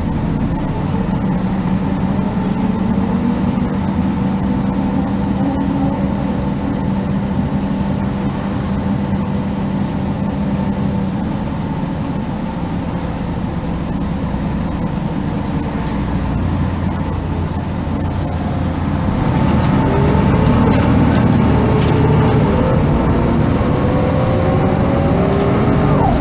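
Heard from inside a 1999 MAN NG312 articulated city bus: its six-cylinder diesel runs steadily at low revs. A thin high whistle sounds for several seconds. About 19 seconds in it grows louder as the bus pulls away, with rising whines from the engine and driveline.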